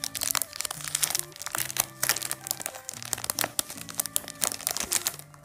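Thin plastic packet crinkling and crackling in the hands as it is opened and a sunglasses cleaning cloth is taken out of it. Background music plays underneath.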